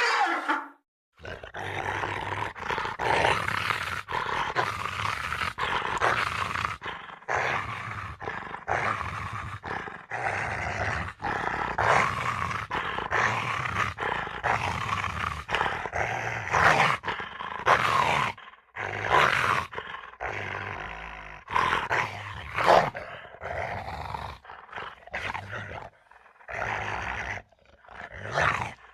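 Creature sound effects for the Siren Fish: a string of rough growls and roars, each a second or two long, broken by short pauses and a few clean silences.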